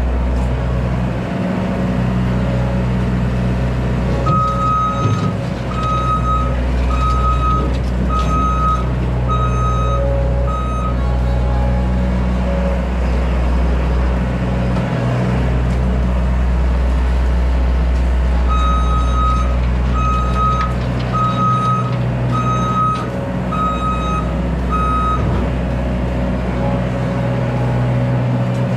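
Small skid steer's engine running steadily under load while its backup alarm beeps about once a second, in two runs of six beeps as it reverses.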